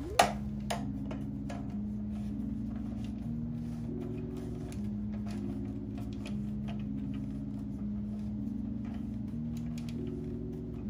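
Soft background music of slow, low sustained notes, with light clicks and taps of plastic stick-vacuum parts being handled and fitted together; the sharpest click comes about a quarter second in.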